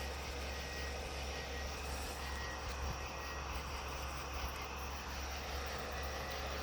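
Steady low engine drone with no change in level.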